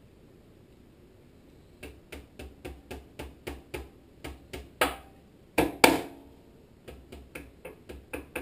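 Ball-peen hammer tapping a steel key into the keyway of a Tecumseh HSK70 engine's shaft: quick light taps about four a second, with three harder strikes in the middle that ring briefly, then lighter taps again.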